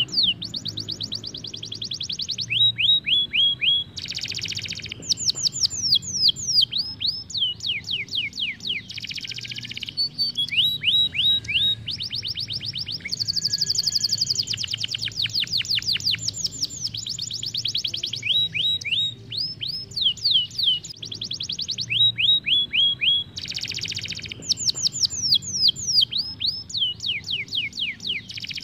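Domestic canary singing a long rolling song. Its trills of rapidly repeated down-sweeping whistled notes switch to a new trill every second or two, with a few short buzzy rolls in between.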